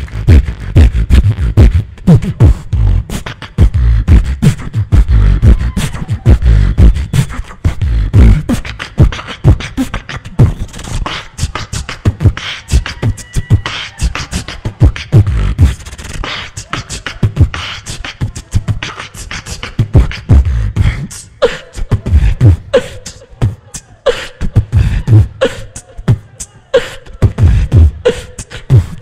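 Solo beatboxing into a handheld microphone: deep vocal kick-drum thumps and sharp snare-like clicks in a fast, steady rhythm. In the last third, short pitched notes recur about once a second over the beat.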